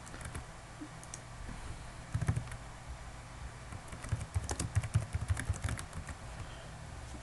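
Computer keyboard typing: scattered keystrokes at first, then a quick run of keys about four seconds in.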